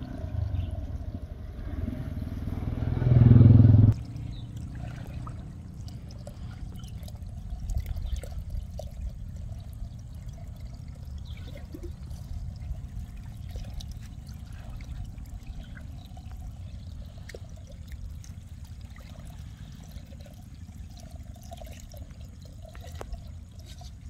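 Water trickling and pouring steadily. In the first few seconds a louder low rumble swells and cuts off suddenly.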